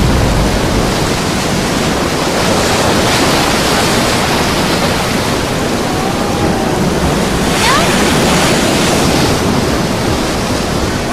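Loud, steady rushing noise, with a faint short whistle rising in pitch about two-thirds of the way through.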